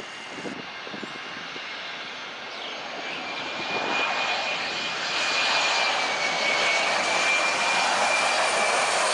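Jet aircraft engines running, growing louder from about three seconds in: a broad rushing noise with a steady high whine over it.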